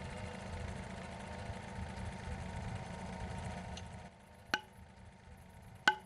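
A steady low rumble, then two sharp knocks with a short ringing tone about a second and a half apart: a wooden tree stake being struck with a hammer as it is driven into the ground.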